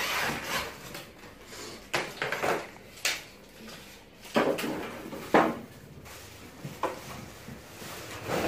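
A large cardboard TV carton and the plastic wrapping inside it being handled, heard as irregular scraping and rustling with several sharp knocks as the television is pulled out of the box.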